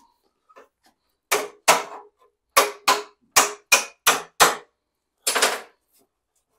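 Hammer blows on the sheet-metal fan shroud of a VW Beetle engine: about nine sharp, ringing strikes at an uneven pace, the last one longer, knocking loose the heater ducts whose pinch welds have just been ground down.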